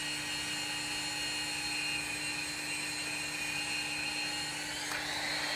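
Hougen magnetic drill's motor running steadily with no load, a whine over a low hum; near the end a click and a slight rise in the whine.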